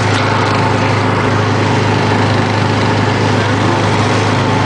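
Small petrol engine of a track-ride go-kart-style car running steadily under way, a low even drone heard from the driver's seat.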